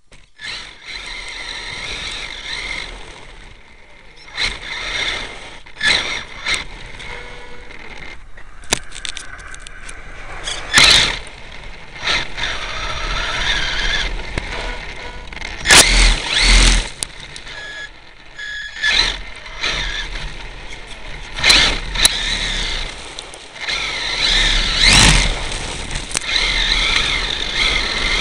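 HPI E-Firestorm Flux electric RC truck heard from its own onboard camera: the brushless motor and drivetrain whine, rising and falling in pitch as it speeds up and slows. Several loud knocks from bumps, landings and tumbles come a few seconds apart.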